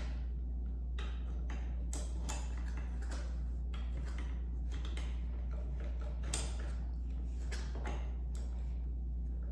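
Handling noise of animatronic parts being fitted together by hand: irregular clicks, knocks and rustles, over a steady low hum.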